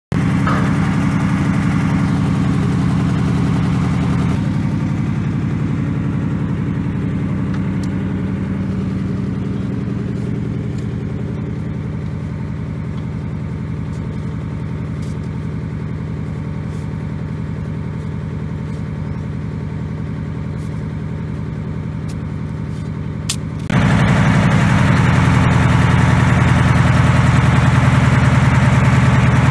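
Crane truck's engine running steadily with an even, unchanging pitch. It is quieter through the middle stretch and louder again near the end.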